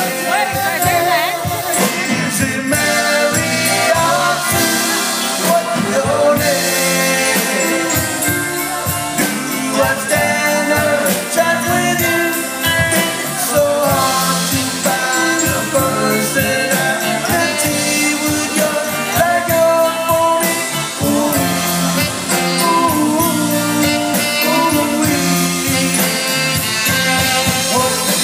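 Live band playing an upbeat song: a horn section of trombone, trumpet and saxophone over electric guitar and drum kit, with singing.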